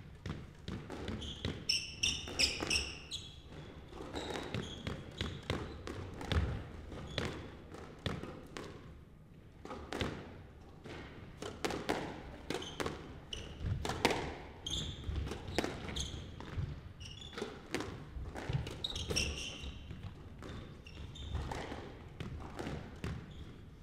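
Squash rally: the ball cracks off rackets and the court walls in an irregular run of sharp impacts, mixed with short high squeaks of court shoes on the wooden floor and the players' footfalls.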